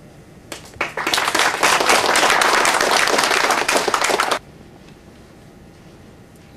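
Small audience applauding by hand for about four seconds, starting about half a second in and stopping abruptly.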